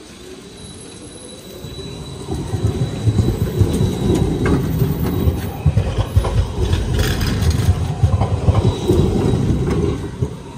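Siemens Combino low-floor tram passing close by, its wheels rumbling on the rails with scattered clatter. The rumble builds about two seconds in and drops away near the end.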